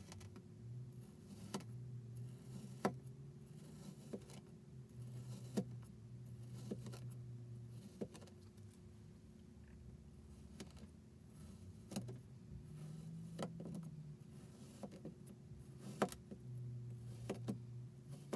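A chef's knife slicing repeatedly through kinetic sand, each cut ending in a sharp click as the metal blade meets the board, about every second and a half, with a faint grainy crunch of the sand around the clicks. A steady low hum runs underneath.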